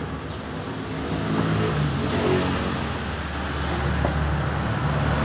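Road traffic going by: a motor vehicle's engine running with a steady low rumble, swelling about two seconds in and again near the end.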